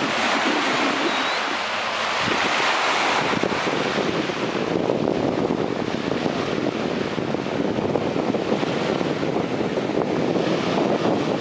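Wind buffeting the microphone over the wash of small waves. About three seconds in, the sound shifts to a lower, denser rush of wind and water.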